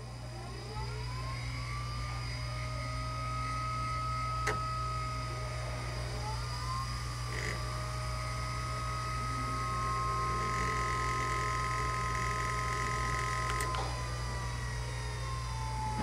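The Lobster Elite tennis ball machine's two DC throwing-wheel motors spin up with a rising whine, run at a steady pitch, shift speed a couple of times and start to wind down near the end. Three sharp clicks come in between.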